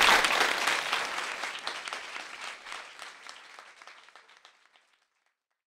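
Audience applause, many hands clapping, loudest at the start and fading away steadily until it is gone about five seconds in.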